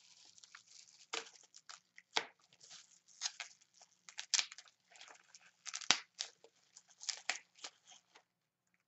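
Plastic bubble wrap crinkling and crackling as it is pulled and peeled off a small glass bottle, in irregular crackles of varying loudness that stop shortly before the end.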